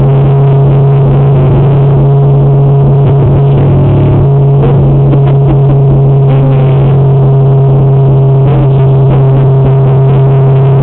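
A car's engine and road noise droning steadily inside the cabin, heard as a loud, unchanging low hum.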